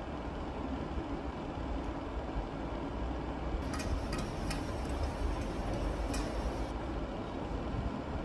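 A steady low rumble, with a few sharp clicks and knocks between about three and a half and six seconds in as hard plastic storage tubs are set down and handled on a stainless steel counter.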